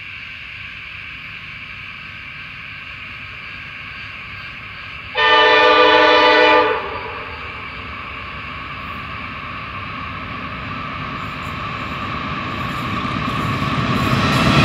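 Pacific National NR class diesel-electric locomotives approaching with a freight train. The horn sounds one chord-like blast about five seconds in, lasting about a second and a half. Then the engine and wheel noise swells steadily louder as the locomotives close in.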